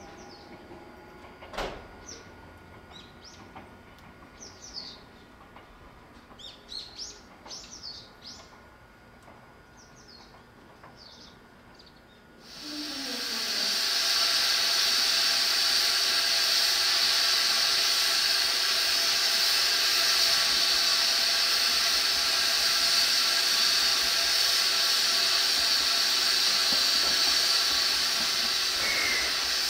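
Small birds chirping now and then against a quiet background, with one sharp click early. About twelve seconds in, a loud steady hiss starts abruptly and runs on without change.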